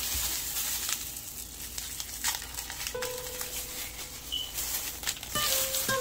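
Plastic crinkling as a wrapped block of mozzarella is handled in disposable plastic gloves, with scattered small clicks. Background music with a stepped melody comes in near the end.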